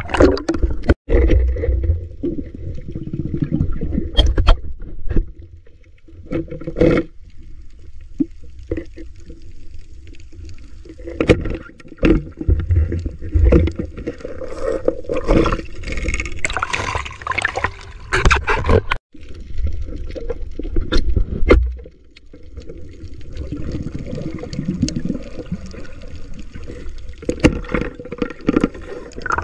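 Underwater sound picked up by a diver's camera: water sloshing and gurgling against the housing, with scattered clicks and knocks throughout.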